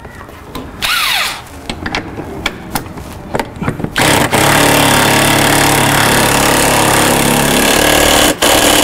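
Small metallic clicks of a nut and tool being handled, then a cordless power driver with a socket runs steadily for about four seconds, spinning a nut down onto the bolt of a bolt-on bumper saver, with a brief drop in its sound just after eight seconds.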